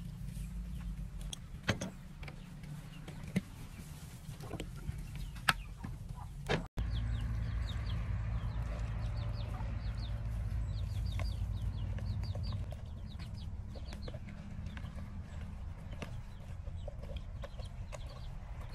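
Chickens clucking while hands mix seasoning into pieces of pig head in a plastic bowl. A few sharp taps in the first few seconds, from a spoon against the bowl.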